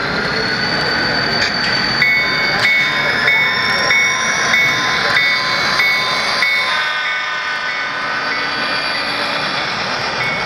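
Model diesel passenger train running past close by, its wheels rolling on the track with a high motor whine that rises in pitch as it approaches. For several seconds a high ringing ding repeats about every two-thirds of a second.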